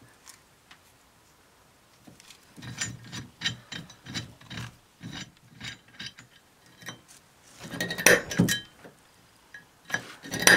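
A pointed steel marking tool scratching and clicking on a rough cast-iron casting in short, irregular strokes, as hole positions are marked by hand. A few louder metal knocks come near the end.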